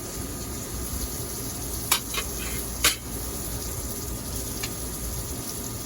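Pot of browned chicken cooking on the stove with a steady sizzling, bubbling hiss. A few sharp clicks, like a utensil knocking the pot, about two and three seconds in.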